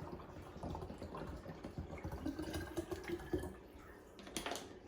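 Water being poured from a bottle of drinking water into a water bottle, with a short click near the end.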